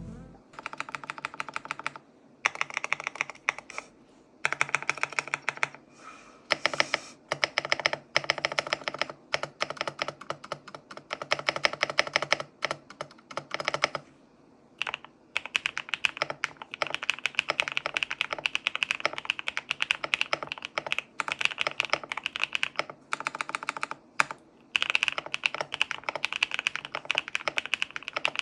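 Typing on a foam-filled GMK67 mechanical keyboard with HMX Hyacinth V2 linear switches: quick runs of key clicks and clacks broken by short pauses of about half a second to a second.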